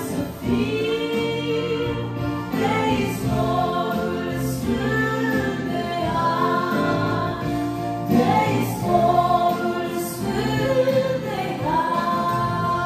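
A woman singing a Christian worship song with keyboard accompaniment, amplified through PA speakers, with long held notes.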